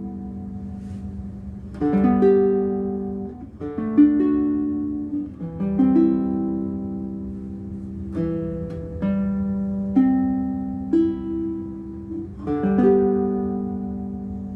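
Bruko mahogany baritone ukulele with a new bone saddle, played as slow chords, each one struck and left to ring out before the next.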